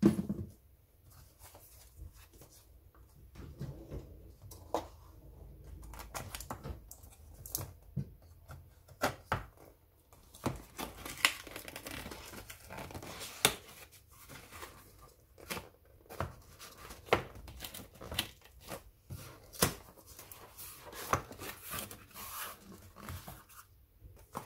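A microphone's cardboard retail box being torn open and handled: paper tearing, crinkling and many scattered sharp rustles and clicks. A single thump sounds at the very start.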